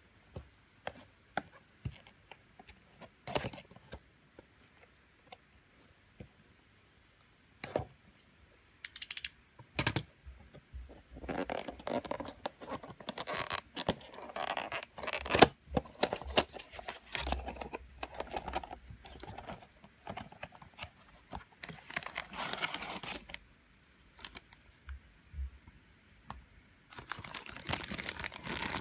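Hands opening a small cardboard figure box: scattered taps and clicks on the cardboard at first, then stretches of rustling and tearing, and a clear plastic bag crinkling near the end.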